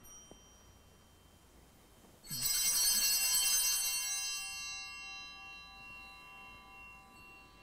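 Sanctus bells rung at the altar, marking the elevation of the chalice at the consecration. The ringing starts suddenly about two seconds in, loudest for about two seconds, then dies away slowly.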